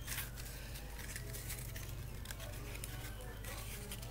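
Cardboard toilet paper roll being handled, its notched tabs pressed and folded down by fingers: soft scraping and crinkling, over a steady low hum.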